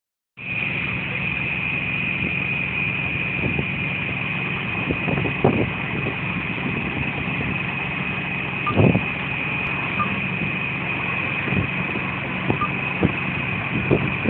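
Fire engine's motor running steadily at idle under a constant hiss, with a few brief knocks here and there.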